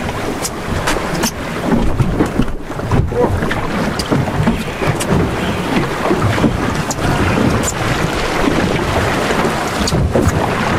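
Wind buffeting the microphone over choppy sea water washing around a small boat, with scattered light ticks through it.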